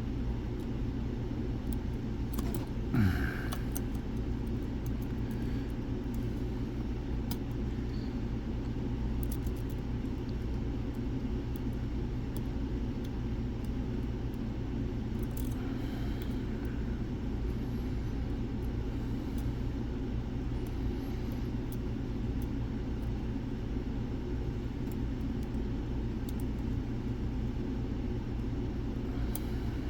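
Steady low background rumble throughout, with faint scattered clicks of lock picks working the pins of a Mul-T-Lock-style dimple lock; a brief louder knock about three seconds in.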